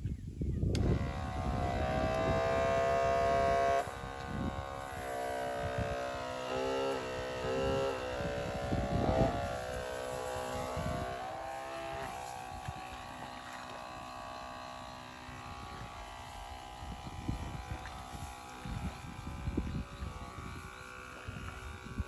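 A small engine running with a buzzing tone, its pitch shifting up and down several times and then settling steady about halfway through, with wind rumbling on the microphone.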